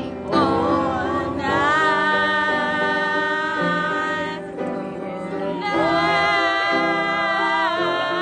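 A woman singing a slow song over piano accompaniment, in two long phrases of held notes with vibrato, with a short break about four and a half seconds in.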